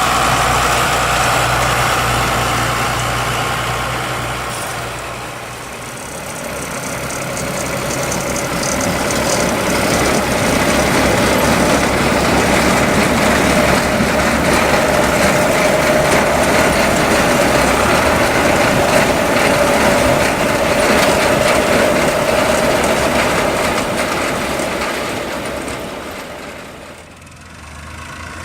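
Farm tractor engine running steadily under load, with the sound fading twice, about five seconds in and again near the end, before coming back up.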